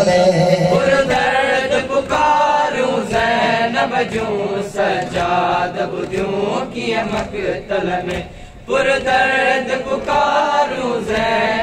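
Men's voices chanting a Sindhi noha, a Muharram mourning lament, led by a reciter on a microphone, with one short break between lines about eight seconds in.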